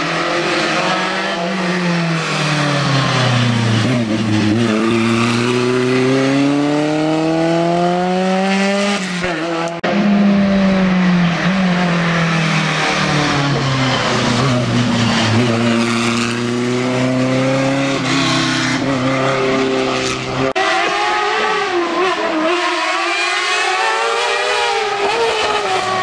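Sport-prototype race car engines at high revs. The pitch falls as a car brakes and downshifts, then climbs again as it accelerates hard away, and this happens twice. The sound changes abruptly about ten and about twenty seconds in.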